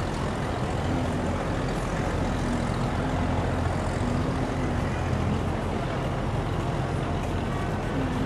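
Steady low outdoor rumble with no distinct events, and a few faint short tones now and then.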